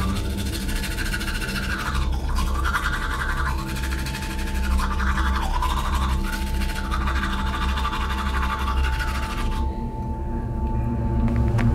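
Toothbrush scrubbing in a series of strokes over a low droning music score with a steady high tone; the scrubbing stops about ten seconds in, leaving the drone.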